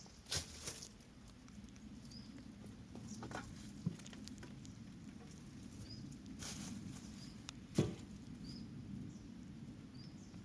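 Irregular crunches and sharp snaps, like footsteps through dry leaf litter and twigs, over a steady low rumble, with a small bird giving a short high chirp every one to two seconds.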